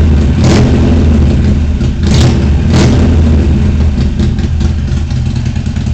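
Harley-Davidson Iron 883 Sportster's air-cooled V-twin running through a Vance & Hines Competition Series 2-into-1 exhaust, revved in three short throttle blips in the first three seconds. It then settles back to a lumpy idle.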